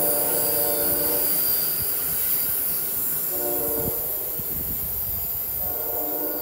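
Departing Amtrak Acela Express sounding its multi-tone horn in three blasts: a long one ending about a second in, a short one in the middle, and another starting near the end. Under it runs a steady high hiss of the moving train.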